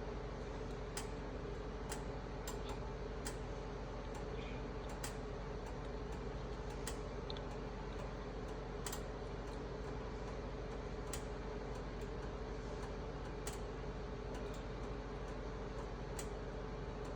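Pot of frying grease heating on a stove over a steady hum, with sharp single ticks every second or two as it comes up toward frying temperature.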